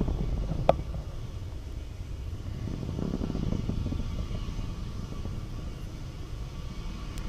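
Low, steady rumble of a SpaceX Falcon 9 first stage and its nine Merlin engines climbing away, heard from the ground, with one sharp click about a second in.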